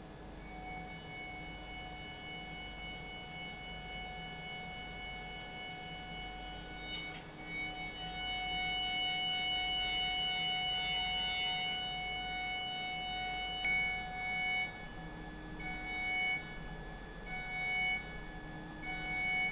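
CNC milling machine's spindle and end mill cutting an 8 mm aluminium plate: a steady, high-pitched whine made of several fixed tones. In the last few seconds the whine cuts in and out about once a second as the cutter moves in and out of the metal.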